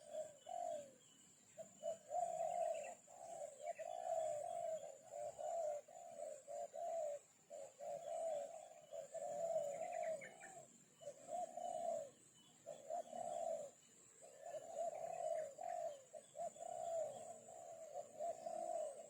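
A bird calling over and over in low, warbling phrases, each about half a second to a second long with short gaps between, and a few faint higher chirps from other birds. A steady high-pitched whine runs underneath.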